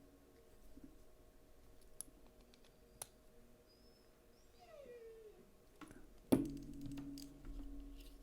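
Faint clicks of small metal parts and a driver as a folding knife's screws are tightened. About five seconds in there is a short falling whine, then a low steady hum in the last two seconds, ending on a sharper click.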